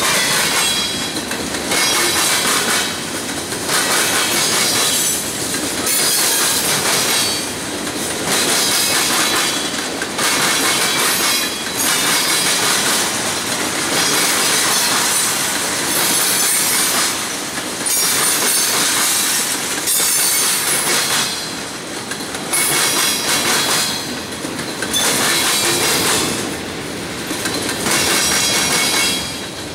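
CSX freight train's cars rolling past, wheels clattering over the rails in a loud rhythm that swells and dips every second or two as each car goes by.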